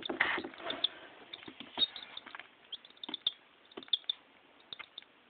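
A chick pecking at crumbled feed on newspaper: irregular light taps, busier and louder in the first second or so, then sparse.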